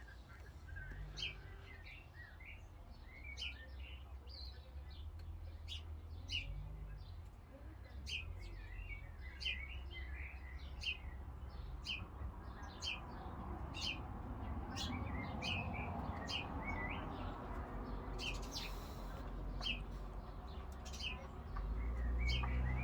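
Small birds chirping: many short, high chirps in quick succession throughout. Underneath is a low rumble that grows louder toward the end.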